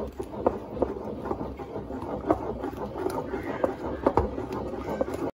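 Wooden pestle stirring and beating thick blended bean paste in a wooden mortar: irregular knocks of wood against wood, several a second, over the wet stirring of the paste. It cuts off suddenly near the end.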